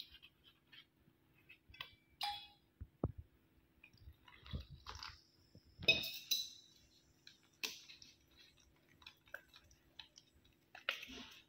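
Plastic spoon stirring a wet flour batter in a stainless steel bowl: irregular soft scrapes, taps and clinks against the bowl, loudest about six seconds in.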